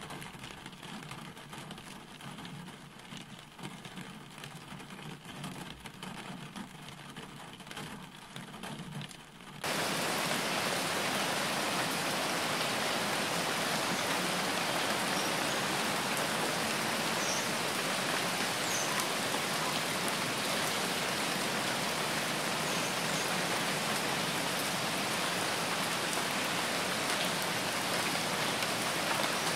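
Rain heard from inside a car. At first it is quieter and uneven, over the low rumble of the car moving on a wet road. About ten seconds in it switches abruptly to a loud, even hiss of heavy rain beating on the windshield.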